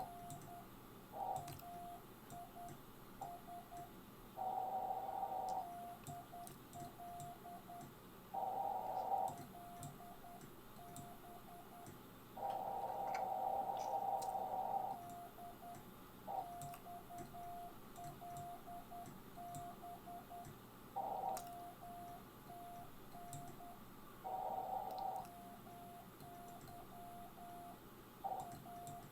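Morse code (CW) on an amateur radio: a single steady mid-pitched tone keyed on and off in quick dots and dashes. Several longer, louder, rougher tones, each about a second or more, break in among them.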